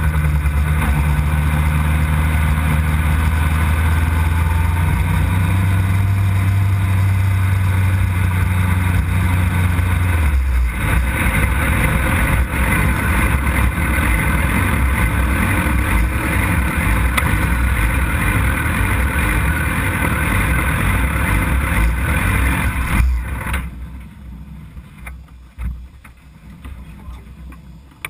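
Suzuki GSX-R 600 sport bike's inline-four engine heard on board, running at a low steady speed, then dropping to a rougher idle about ten seconds in as the bike rolls slowly, and shut off a few seconds before the end.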